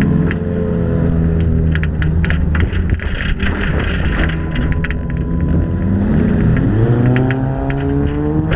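Demolition derby car's engine, heard from on board, running hard through a lap of a dirt oval. Its pitch sags and then climbs steeply about six and a half seconds in as it accelerates. Sharp clicks and rattles are scattered throughout.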